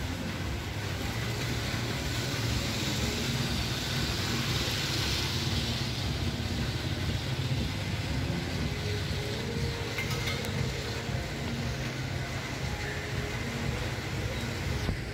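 City traffic ambience on wet streets at night: a steady low rumble of vehicles with a hiss that swells a few seconds in.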